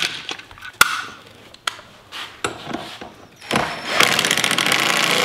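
A few short knocks as the tool and bolt are handled, then about four seconds in a cordless impact driver starts hammering fast, running in the bolt that holds the harness strap to the seat.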